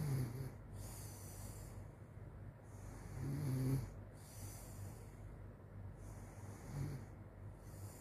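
A sleeping girl snoring: a low-pitched snore on each breath, about every three seconds, the loudest a little after three seconds in, over a steady low hum.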